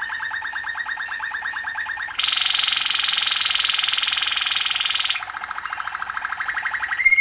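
Canary singing rapid trills: a fast run of repeated notes that jumps to a higher, louder trill about two seconds in and drops back to the lower trill about three seconds later, then changes to a clear held whistle right at the end.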